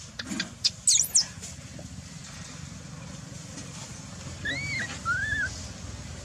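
Newborn macaque giving short arched cries, two close together and then a lower third, about four and a half seconds in. A few sharp high chirps come about a second in, over a steady low background rumble.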